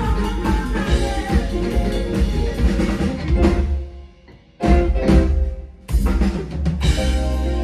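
Live band playing with a full drum kit and bass, the band breaks off for about a second partway through, then comes back in with hard hits on the drums.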